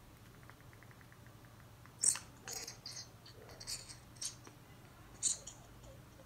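DVO Diamond fork's compression damper cartridge being slowly pulled up out of the fork stanchion by a gloved hand. It makes a few short, faint scraping sounds, starting about two seconds in.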